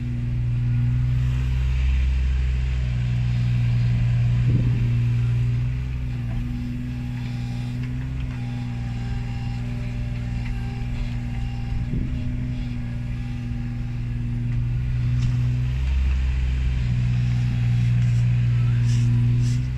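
Mini excavator's diesel engine running steadily as it digs and slews, growing louder twice as it works harder, with a faint whine for a few seconds midway and an occasional brief knock.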